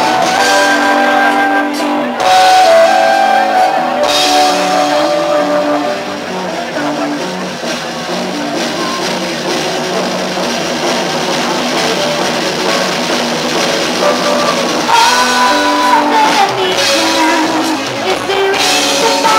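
Live pop band playing: drum kit and electric guitar under held melody notes, with a flute carrying the tune at the start.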